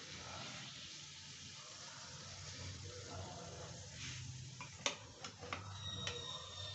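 Whole-wheat puri deep-frying in hot oil in a kadhai, sizzling steadily. About five seconds in, a steel spatula knocks against the pan a few times with sharp clicks.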